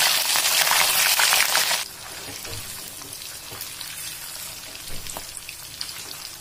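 Paneer cubes deep-frying in hot oil in a metal kadhai: a dense crackling sizzle that drops suddenly to a softer sizzle about two seconds in. A few light clicks come from the metal slotted spoon turning the cubes in the pan.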